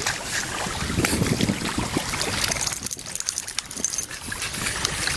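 Lake water lapping and splashing at the shore, with wind buffeting the microphone.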